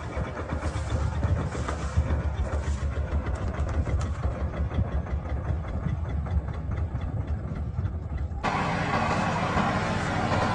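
Combine harvester's diesel engine running with a fast low pulsing. About eight seconds in, the sound switches abruptly to a steadier, brighter machine noise.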